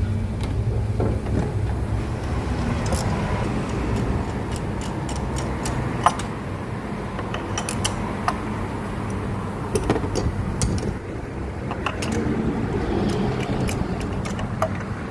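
Car engine running steadily, with scattered sharp clicks throughout.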